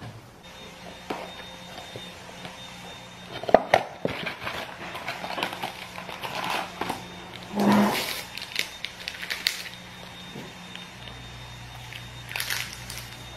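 A cardboard tea box and a paper tea-bag wrapper being handled and opened, with crinkling and rustling broken by a few sharp clicks and knocks.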